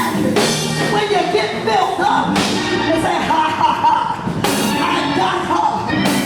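Live gospel church music: a band playing with voices singing over it, and a crash about every two seconds.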